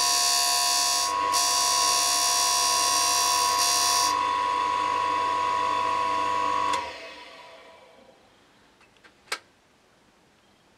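D-bit grinder's electric motor spinning a thin cut-off wheel with a steady high whine, its upper hiss dropping out about four seconds in; it is switched off about seven seconds in and quickly spins down. One sharp click follows near the end.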